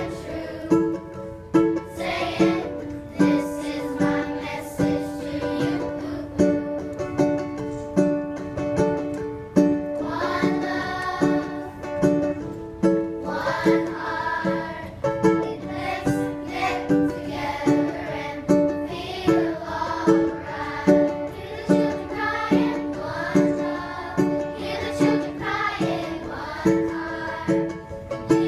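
Children's choir singing in unison to a strummed acoustic guitar, which keeps a steady strumming rhythm.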